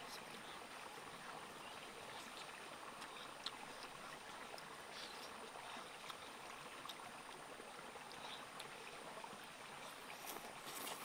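Steady rush of running stream water, with a few faint smacks and clicks of someone eating meat by hand.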